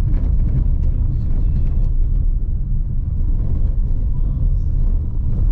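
Car driving on an unpaved dirt track, heard from inside the cabin: a steady low rumble of tyres and engine, with faint scattered rattles.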